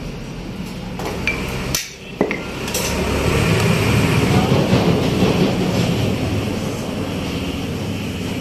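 Sharp metallic clinks and knocks as a motorcycle crankshaft with a ball bearing is handled on a steel roller balancing stand, over steady, dense background noise that swells louder in the middle.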